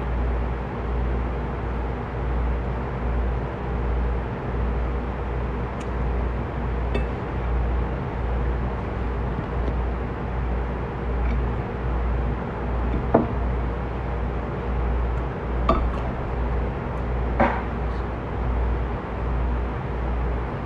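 A fork clinking against a salad plate several times, the clearest three sharp clinks in the second half, over a steady low background rumble.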